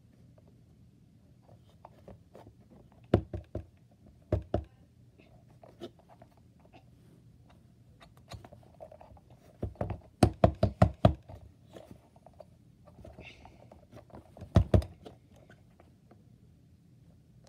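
Soft rubbery egg-yolk squeeze toy knocking and thudding against a desktop as it is squashed and rocked by hand. The knocks come in small clusters, with a quick run of about six halfway through.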